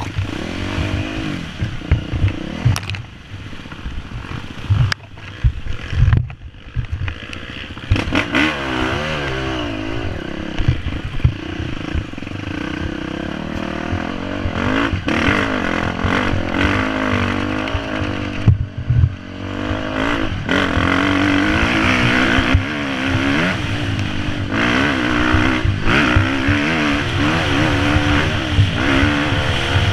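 Dirt bike engine heard close up from on board, revving up and down with the throttle over rough ground, with knocks and clatter from the bike hitting bumps. After about twenty seconds it runs harder and steadier.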